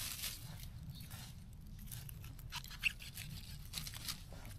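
Soft rustles, scrapes and small snipping clicks of wild mushrooms being cut and gathered by hand from the forest floor. A brief scrape comes at the start, with a sharper click a little under three seconds in.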